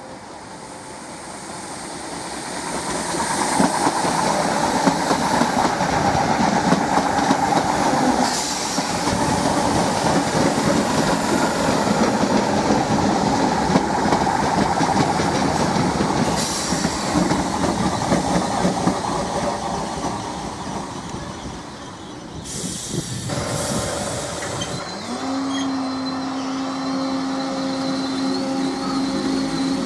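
Class 313 electric multiple unit passing close by at speed: a steady rumble of wheels on rail with clicking over the joints, building over the first few seconds. About 23 seconds in it gives way to a steady electric hum, with a short rising whine, as a Class 313 moves slowly along the platform.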